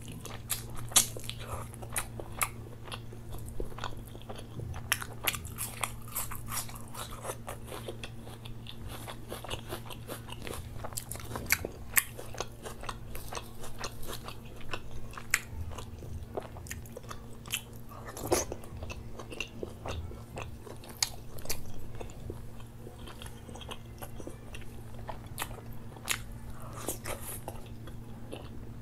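Close-miked chewing: a person eating butter chicken, rice and naan by hand, with many irregular wet mouth clicks and smacks. A steady low hum runs underneath.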